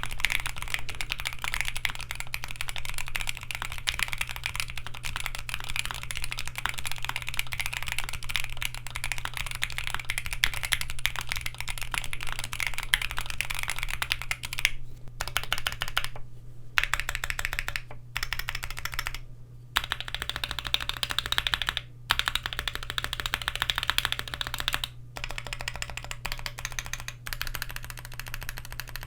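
Keychron Q1 HE aluminium keyboard with its stock Gateron magnetic Hall-effect switches and lubed stabilizers, typed on quickly and continuously, with a few short pauses in the second half. A steady low hum runs underneath.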